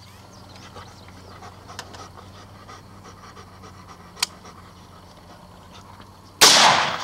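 AR-15 rifle with a DSArms ZM4 5.56 NATO upper firing a single shot about six and a half seconds in, a sharp crack that dies away over about half a second. Before it, faint handling noise and one sharp click about four seconds in.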